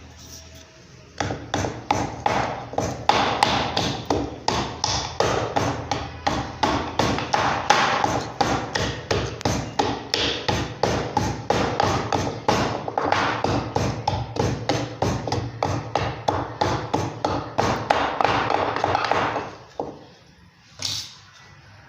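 Rapid, steady rhythmic knocking, about three or four strikes a second, starting about a second in and stopping a couple of seconds before the end, followed by a single knock.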